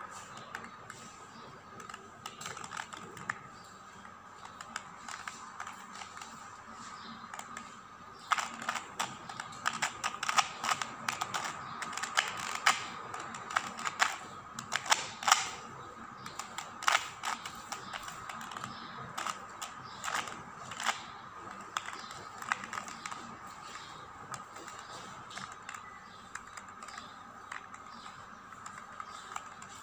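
Plastic Rubik's Mini 2x2 cube being twisted by hand: a run of sharp clicks and clacks as its layers turn. The turning comes in a fast, loud burst from about a quarter of the way in to about halfway, then goes on more sparsely, over a faint steady hum.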